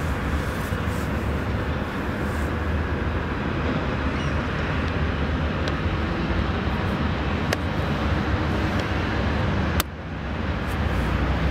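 Steady rumble of road traffic, with a constant low hum under an even wash of noise. A sharp click comes just under ten seconds in, and the sound dips briefly after it.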